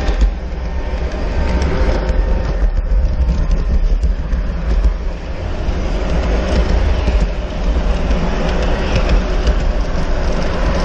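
G-scale model passenger train rolling along its outdoor track, heard up close from a car of the train: a steady rumble of wheels on the rails with many small clicks.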